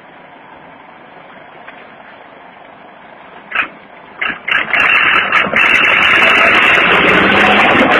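Mahindra tractor's diesel engine, low and steady at first, then loud from about four and a half seconds in as it is driven hard under load to push its front wheels up a stone wall. A few sharp knocks come just before the engine turns loud.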